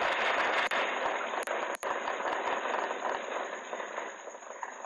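Earthquake rumble and rattling picked up by a home security camera's microphone: a loud rushing noise with a few sharp knocks in the first two seconds, dying away toward the end, over a steady high whine.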